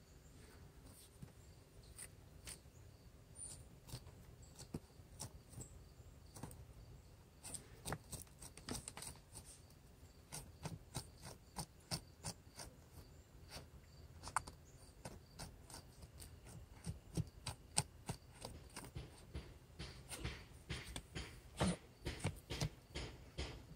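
A small dog's front paws scratching and digging in loose soil: quick, irregular scrapes of claws in dirt, sparse at first and coming in fast flurries from about a third of the way in.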